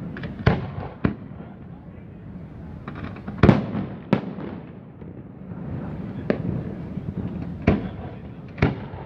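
Aerial fireworks shells bursting overhead in a string of sharp bangs, about seven in nine seconds, the loudest about three and a half seconds in.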